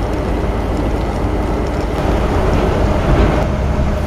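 Steady rumbling noise on a railway station platform, much of it wind buffeting the microphone, over the low hum of trains standing at the platforms.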